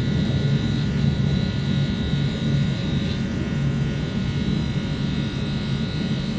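Aeroexpress electric commuter train running, heard from inside the carriage: a steady low rumble with a faint, even high hum over it.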